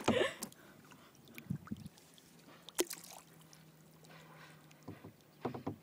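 Quiet water sounds against a plastic kayak on calm water, with a few soft knocks and one sharp tap about three seconds in.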